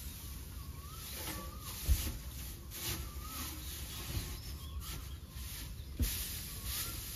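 Dry straw rustling and crackling as armfuls are tossed and pushed in around metal box ovens, with two dull knocks, about two seconds in and about six seconds in. A bird repeats a short rising-and-falling chirp every second or so in the background.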